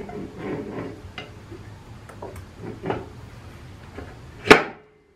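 Metal transmission parts clinking and scraping as the intermediate assembly of a 47RE automatic transmission is lowered down into the case, with one loud clunk near the end.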